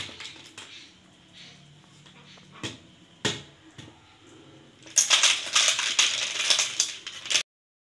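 Boiled freshwater snails in their shells clattering into a steel bowl as a metal ladleful is tipped out, a dense rattle of shell on steel lasting a couple of seconds and cutting off abruptly. A few single knocks of the ladle against the pot come before it.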